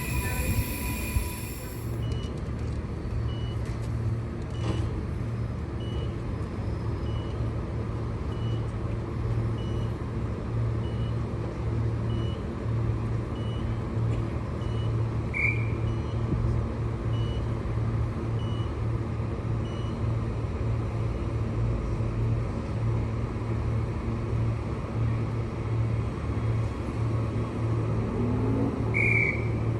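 Train at a station: a steady low hum. A faint short beep repeats about every three-quarters of a second through the first two-thirds, and two brief high chirps come near the middle and near the end.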